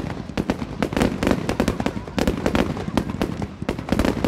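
Fireworks display in full flow: a dense, unbroken run of bangs and crackles, many a second, from several shells bursting at once.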